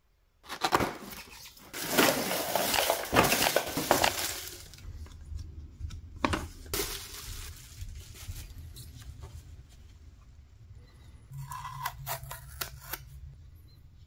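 Unboxing handling noise: cardboard and plastic packaging rustled and torn, loudest in the first few seconds and again briefly around the middle. Near the end comes a run of light clicks and knocks as the hard plastic parts of a handheld vacuum cleaner are handled.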